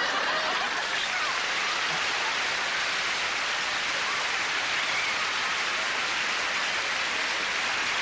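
Studio audience applauding steadily, with a few faint shouts near the start.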